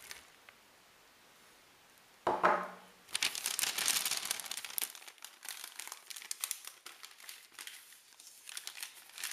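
Plastic MRE flameless ration heater bag crinkling as it is handled and folded, with the food pouch inside. A sudden bump about two seconds in, then a loud stretch of crackly crinkling that thins out to lighter rustling.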